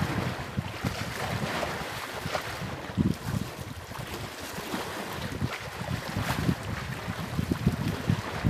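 Wind buffeting the microphone in uneven gusts, over the wash of waves on open water.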